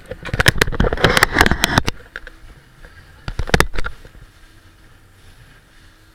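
Small boat's hull pounding over waves under way, with rough knocking and splashing in two spells, a longer one in the first two seconds and a short one just past three seconds, then the quieter steady noise of the run.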